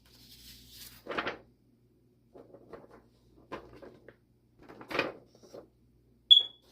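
Handling of a laptop's packaging during unboxing: a brief sliding rustle, then a series of knocks and thumps of box parts being moved, and a single sharp click near the end.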